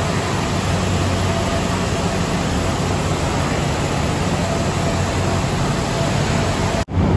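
Diesel railcar idling at the platform: a steady low engine hum under a wash of station noise. The sound drops out for an instant near the end.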